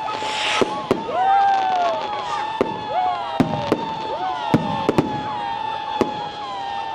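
Fireworks display: whistling fireworks giving a held high whistle and several swooping whistles that rise and fall, with sharp bangs and cracks scattered through.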